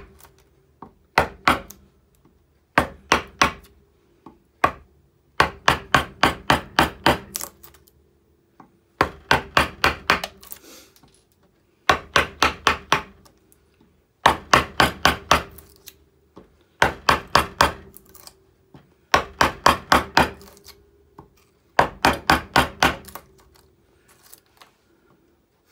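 Wooden carver's mallet striking the handle of a hand gouge, driving it almost straight down into alder wood to set stop cuts. The sharp knocks come in quick runs of about four to eight, a few a second, with short pauses between the runs.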